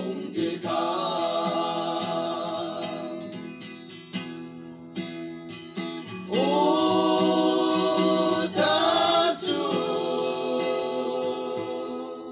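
A group of men singing together to guitar accompaniment, with long held notes. The voices drop back about four seconds in, leaving mostly strummed guitar, then come back in strongly about six seconds in.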